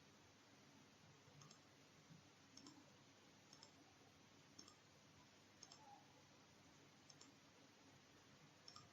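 Faint computer mouse clicks, about one a second, over near silence.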